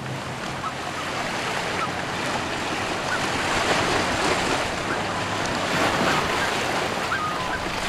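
Wind and choppy water lapping on a lake surface, a steady rushing wash, with a few faint short calls scattered through it.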